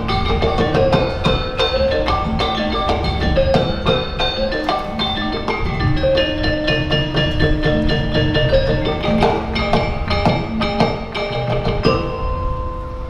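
Sundanese gamelan degung ensemble playing: struck bronze metallophones and gong-chimes in a busy, ringing melody over drums, closing on held ringing notes near the end.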